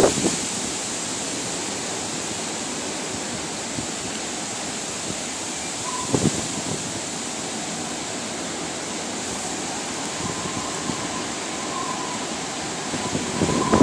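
Strong storm wind rushing steadily through dense trees, with a short louder rush about six seconds in.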